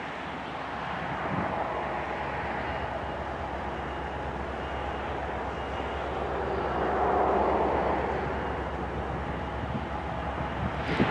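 CSX diesel-electric locomotives rumbling in the yard, a steady low engine drone that swells and fades again around seven seconds in.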